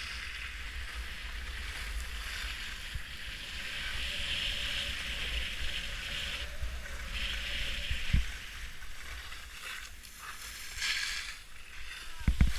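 Skis sliding and carving on packed snow, a steady hissing scrape, with wind rumbling on the microphone. A thump about eight seconds in and another near the end.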